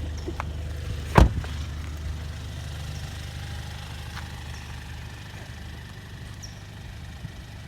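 Kia Stinger's engine idling with a steady low hum that slowly grows fainter, and one loud thump about a second in.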